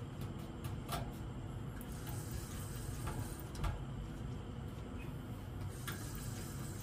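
Fishing reel being cranked to wind in line, a small mechanical whirring with a few sharp clicks, over a steady low rumble.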